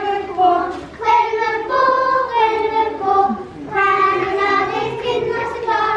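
Children's choir singing a Swedish Christmas song in a Lucia procession, several voices together in long, held notes.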